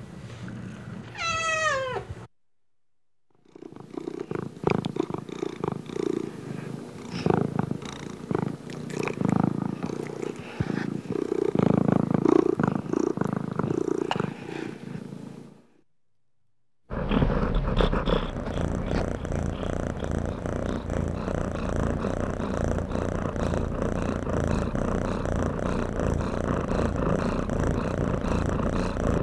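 A kitten's single meow falling in pitch. After a short pause comes a stretch of uneven, close rumbling with scattered clicks, and after another short gap a cat's steady, rhythmic purr.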